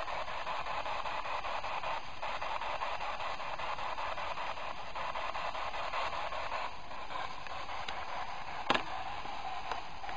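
Radio static from a spirit box sweeping through stations: a steady hiss with a fast, even flutter. One sharp click comes near the end.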